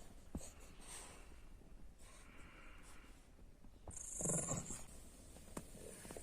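French bulldog breathing audibly, with one louder, short sound from the dog about four seconds in.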